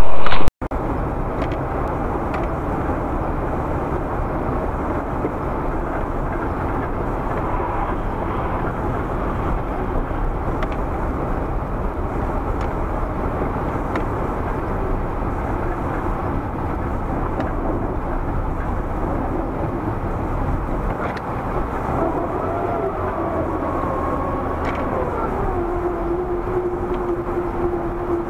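Steady road and engine noise heard from inside a moving car, as recorded by its dash cam, with music cutting off about half a second in. Near the end a wavering pitched tone glides up and down, then holds steady.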